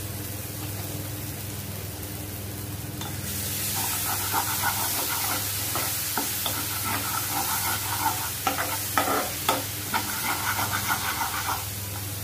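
A metal spoon stirring and scraping a thick onion-tomato masala around a frying pan as it sizzles in oil, over a steady low hum. The sizzle comes up about three seconds in and the scraping about four seconds in, with a few sharp knocks of the spoon against the pan around nine seconds in.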